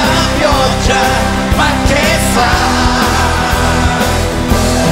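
Live pop-rock band music, with singing voices over the band.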